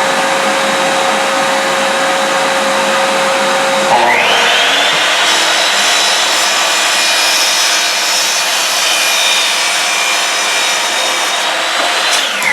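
Power miter saw motor spinning up about four seconds in, running for about eight seconds while cutting an angle through 2.5-inch PVC pipe, then winding down near the end. A steady machine noise with a hum runs underneath throughout.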